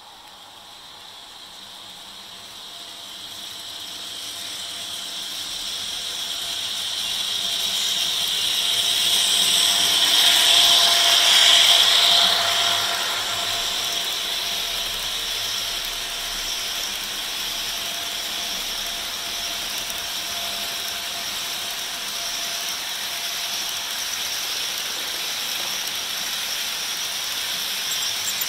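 Model train locomotive approaching and passing close by, its motor and gears whining and its wheels clicking over the track, growing louder to a peak about ten seconds in. Then a steady rolling clicking as the double-stack intermodal cars go by.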